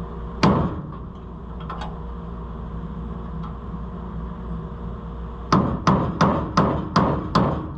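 Hammer blows on steel, driving a pin on an Oliver 7300 combine head's gathering chain: one strike, then after a pause a run of seven, about three a second, each with a short metallic ring.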